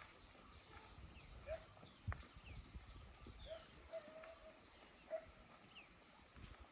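Outdoor rural ambience: insects chirring steadily in a high pulsing trill, with a few short bird calls over it and one sharp click about two seconds in.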